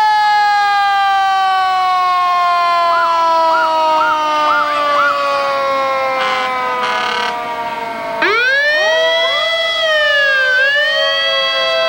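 Fire truck siren wailing, its pitch sliding slowly down for most of the time. About two-thirds of the way through it winds quickly back up, dips once, rises again and starts falling near the end.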